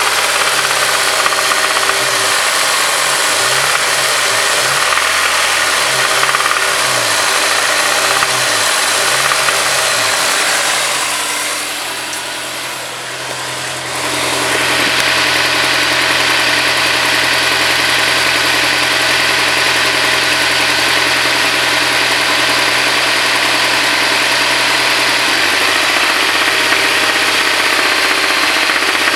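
Honda S2000's four-cylinder engine running with a knock, which the owner takes for rod knock. The sound drops a little in level about twelve seconds in, then runs steady.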